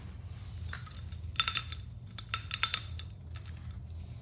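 Metal vacuum wand clinking: a quick cluster of sharp metallic taps with a short ring, from about one to three seconds in.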